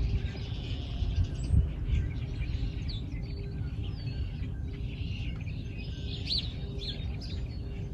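Small birds chirping in short, scattered calls over a steady low rumble, with a faint steady tone underneath.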